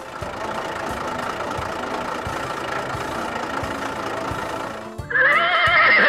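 Background music with a steady beat. About five seconds in, a horse whinnies loudly, a wavering call that rises and then falls off over about a second.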